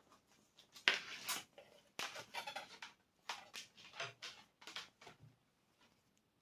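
A run of short, irregular rustles and clicks from intercom wiring being handled and connected. There are about ten small scrapes and taps over four seconds.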